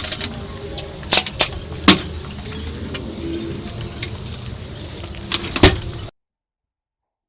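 Airsoft gun shots: three sharp cracks about a second in, then two more later, over a steady low rumble. The sound cuts out abruptly to dead silence about six seconds in.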